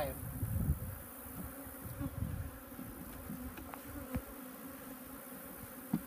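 Honeybees buzzing in a steady hum over an opened Langstroth hive body, with a few light knocks as wooden frames are handled and lifted out.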